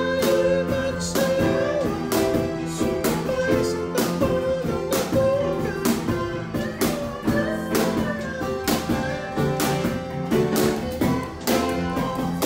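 Music: a guitar-backed song with a steady beat.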